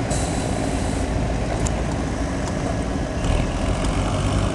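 Farm tractor engines running at low idle on the pull track, a steady low rumble with no revving.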